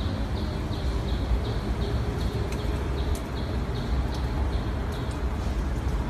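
Outdoor background noise: a steady low rumble with a faint high chirp repeating a little over twice a second, fading out about halfway through.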